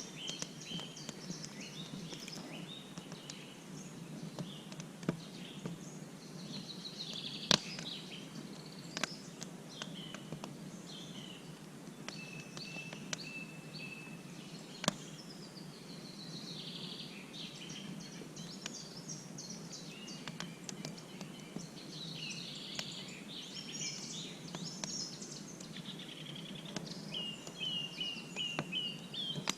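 Songbirds singing and chirping in many short phrases over a steady outdoor background hum, with a few sharp snaps here and there.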